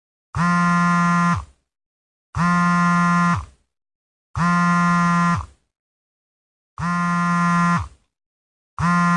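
Telephone ringing: a buzzy electronic ring tone, about a second on and a second off, four full rings with a fifth starting near the end.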